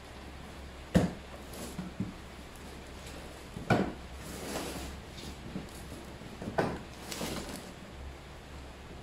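Long cardboard box of brush-cutter shafts being opened and shifted on a concrete floor: three knocks about three seconds apart, the second and third followed by cardboard rustling and scraping.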